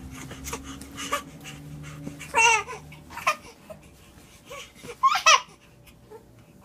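A baby babbling with short, high-pitched squeals and coos, the loudest about two and a half seconds and five seconds in.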